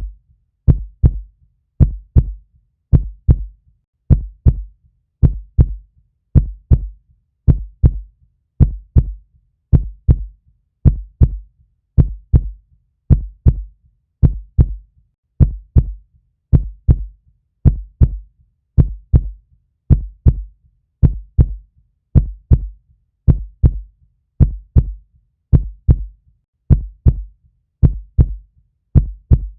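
Heartbeat: a steady, even rhythm of paired low thumps, lub-dub, repeating without pause.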